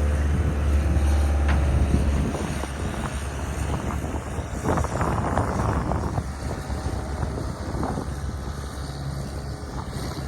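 Skid steer engine running, its strong low drone dropping off about two seconds in, with scattered clanks and knocks through the rest.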